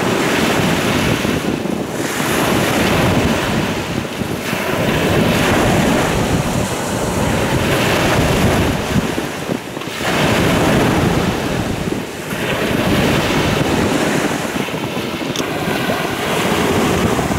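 Sea surf washing onto a pebble shore, swelling and ebbing every few seconds, with wind buffeting the microphone.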